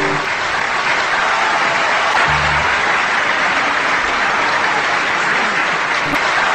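Audience applauding, a steady clatter of many hands, with a short low instrumental note about two seconds in.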